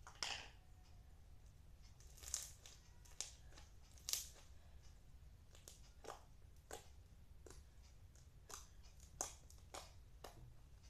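Slime made with body scrub being squeezed and stretched by hand, giving faint, irregular crackles and pops, about a dozen over the stretch.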